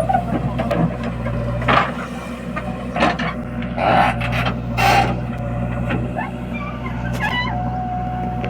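Heavy diesel engine running steadily at a low, even pitch, with several short rushing bursts of noise over it about one a second in the middle.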